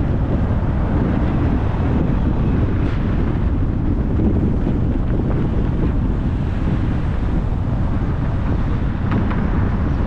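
Steady low rumble of a car driving on the road: tyre and wind noise.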